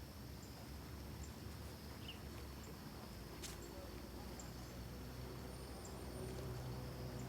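A motor engine's low hum grows louder over the second half, over faint regular high chirps and a high steady buzz in the background, with one sharp click about halfway through.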